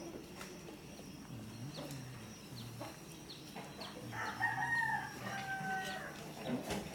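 A rooster crows once, a call of about two seconds starting about four seconds in, over faint clicks and rustling.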